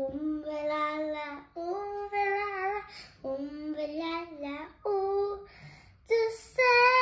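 A young girl singing a children's action song, held notes in several short phrases with brief breaths between them.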